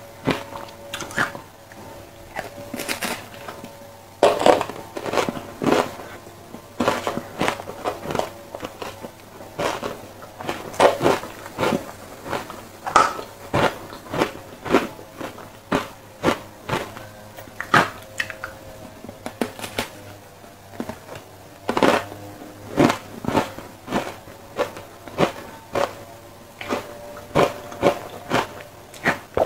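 Close-miked biting and crunching of ice coated in matcha powder: irregular sharp crunches, some in quick runs, with quieter chewing between.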